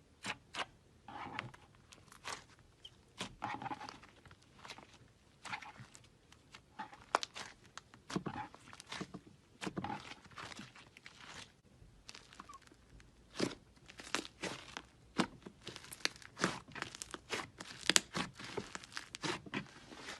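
Hands squeezing and poking slime, making irregular sticky pops, clicks and squelches.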